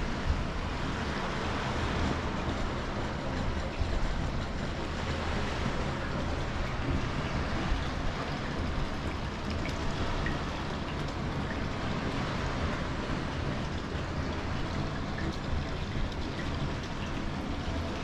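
Wind blowing on the microphone over the steady wash of small waves on a sandy beach.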